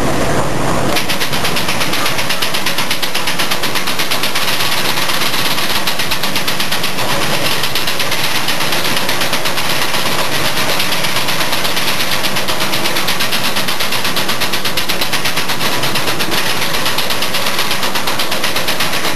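Rotary monoblock filling-and-capping machine running on a plastic oil-bottle line: a loud, steady mechanical clatter with a fast, even rhythm.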